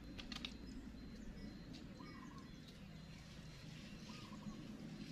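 Faint outdoor ambience with a few short bird chirps, and a brief cluster of clicks just after the start.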